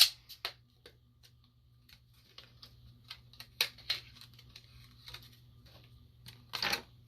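A package of small craft magnets being handled and opened: a sharp click at the start, then scattered light clicks and taps, with a brief louder rustle near the end.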